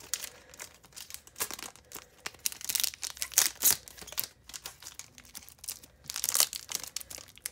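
A foil Pokémon booster pack being cut open with scissors, its wrapper crinkling in irregular bursts of crackle.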